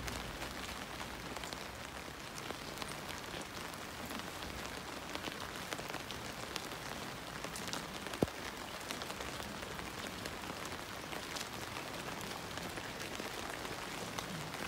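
Light rain falling, an even patter of fine drop ticks, with one sharp click about eight seconds in.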